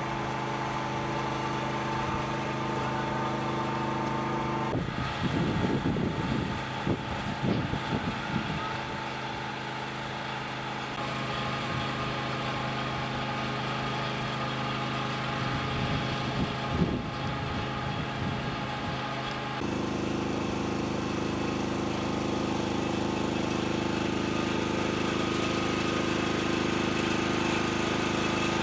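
An engine running steadily with a droning hum. Its tone shifts about five seconds in and again about twenty seconds in, with some irregular rustling noise in between.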